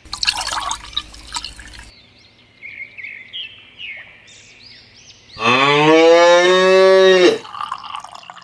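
A cow mooing: one long call lasting about two seconds, beginning a little past the middle. A short burst of hissing noise comes at the start.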